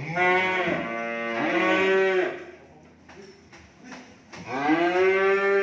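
Cattle mooing: a long moo right at the start with a second call overlapping its latter half, then another long moo beginning about four and a half seconds in.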